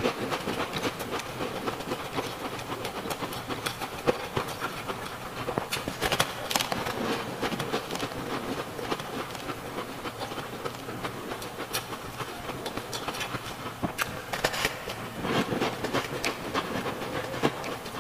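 Close-miked crunching of ice being chewed: a dense run of crackles and crunches, with a few sharper cracks now and then.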